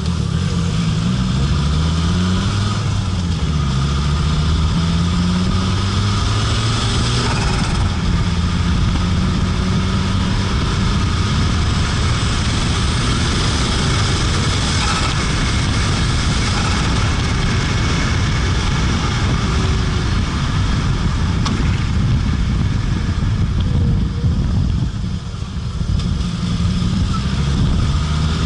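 Fiat Marea Turbo's five-cylinder engine being driven. Its pitch rises and falls a few times in the first few seconds as it revs and changes gear, then holds steadier, dropping back briefly near the end before climbing again.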